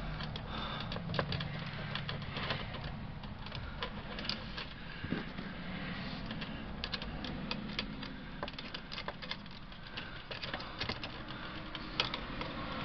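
Soft, scattered clicks and light rattles of hands and a small hand tool working wires onto the DC terminal lugs of an RV power converter's distribution board.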